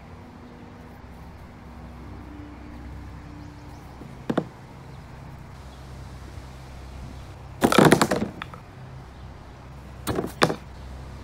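White PVC-pipe Cornbowl pins struck by a thrown bean bag: a loud clatter of hollow plastic pins knocking together and onto the wooden board, with a couple more clacks about two seconds later as pins settle. A single small knock comes a few seconds before.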